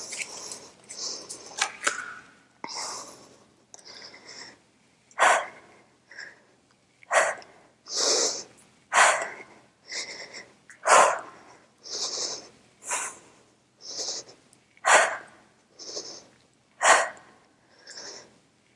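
A woman breathing hard through a set of single-arm dumbbell rows: a short, forceful exhale about every two seconds, one with each pull, with softer inhales between.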